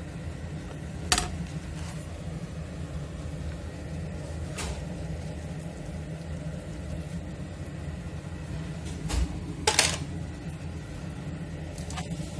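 Cooking utensils knocking sharply against a non-stick frying pan about five times, loudest as a quick cluster near the ten-second mark, while fettuccine is tossed into cream sauce. A steady low hum runs underneath.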